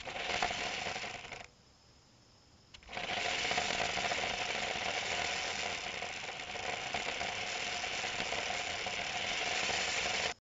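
Parrot Jumping Sumo robot's small electric drive motors running as it drives over asphalt, a steady whirr with a fixed tone. It runs briefly at first, stops for about a second and a half, then runs steadily from about three seconds in and cuts off abruptly near the end.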